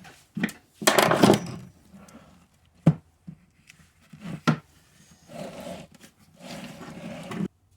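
Parts being handled on a workbench: a few sharp knocks and clicks, with stretches of scraping and rubbing in between, cutting off suddenly near the end.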